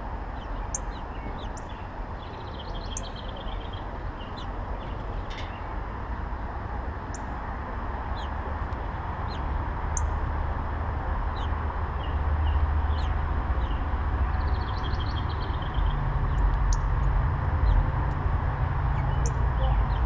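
Small birds chirping, with many short scattered calls and two quick trills, one about three seconds in and one about fifteen seconds in. Under them runs a steady low rumbling noise that grows louder in the second half.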